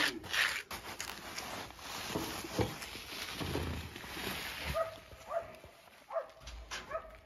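A shovel scraping and scooping dry cattle feed (küspe) at a sack and wheelbarrow, with rustling and a few knocks. In the second half a dog gives several short cries, repeated about every half second.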